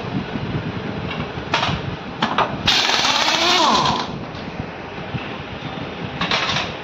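Pneumatic impact wrench hammering in bursts as it undoes the bolts of a Renault Triber's gearbox casing, with a long loud burst around the middle and a shorter one near the end.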